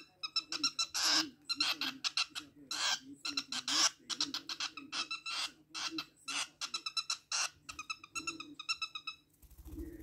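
A rosy-faced lovebird chick chirping over and over in short, sharp, high calls, several a second, with a few louder, longer squawks among them. Near the end there is a brief soft flutter of wings.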